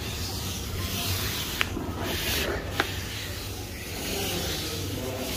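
Hands handling and clearing things on a table: rustling and rubbing, with two light clicks, one about a second and a half in and one near three seconds in, over a steady low hum.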